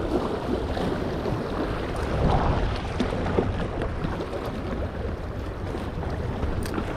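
Sea water washing and sloshing against a sandstone rock shelf, with wind on the microphone: a steady wash of noise.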